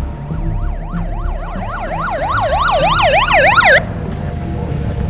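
Police car siren in a fast yelp, its pitch rising and falling several times a second, growing louder, then cut off suddenly near four seconds in, over a low rumble.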